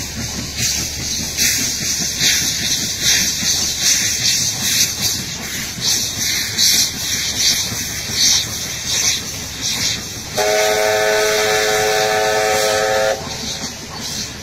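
Steam locomotive working hard, its exhaust beating out rhythmic chuffs over a steady hiss of steam. About ten seconds in, its steam whistle sounds once for about three seconds, a chord of several tones at once.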